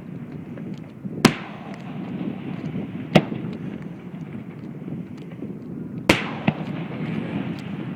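Aerial fireworks bursting: three sharp bangs a couple of seconds apart, with a fainter pop after the last, over a steady low rumble of the display.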